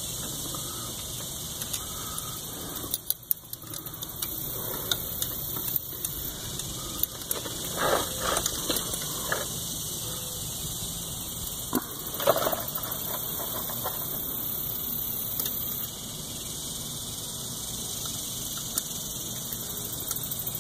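Steady hiss with scattered faint clicks and two brief scrapes, about eight and twelve seconds in, from hand work pulling the brittle old coolant crossover-tube O-ring off a motorcycle engine.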